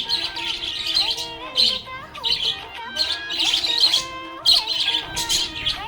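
Budgerigars chirping in repeated bursts of rapid high chirps, with lower warbling notes that slide up and down underneath.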